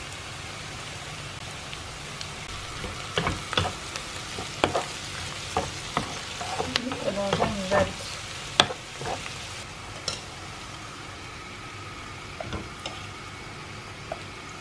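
Sliced onions sizzling as they fry in clarified butter in a nonstick pan, stirred with a wooden spatula that knocks and scrapes against the pan several times in the middle.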